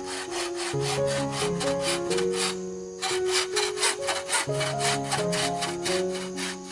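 Hand saw cutting wood in quick, even strokes, about four a second, with a brief pause about three seconds in. Background music with a stepping melody plays under it.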